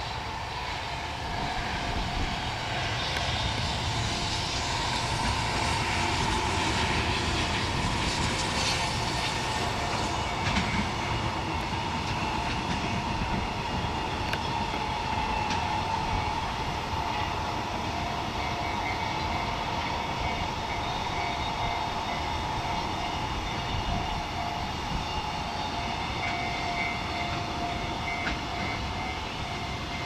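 A long JR Freight container train passing: container wagons rolling steadily along the track with a continuous rumble and clatter. A steady high-pitched ring runs over it, and strong wind buffets the microphone.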